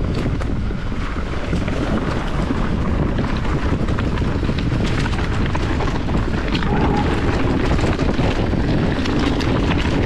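Mountain bike descending a rocky, leaf-covered trail at speed, with wind rushing over the camera microphone. The tyres rumble over the ground, and the 2023 Specialized Epic Evo's frame and suspension rattle with a constant stream of clicks and knocks from rocks and roots.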